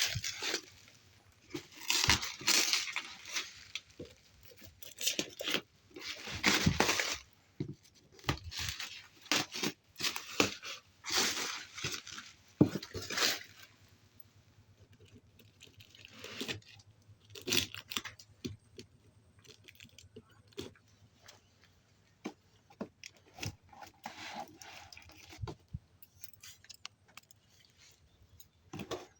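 Packaging being handled, crinkled and torn open by hand, in irregular rustling bursts that thin out to scattered small rattles and crinkles about halfway through.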